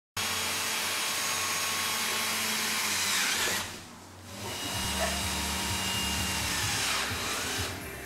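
Cordless drill boring holes into a plastic pipe: a steady motor whine in two runs, with a short break about halfway.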